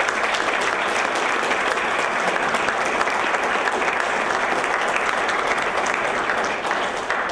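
Audience applause, a steady mass of clapping that begins to die away near the end.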